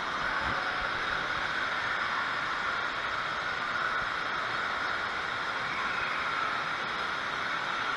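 Steady ambient noise of an indoor water park hall: water and crowd sound blended into an even hiss-like wash with no distinct events.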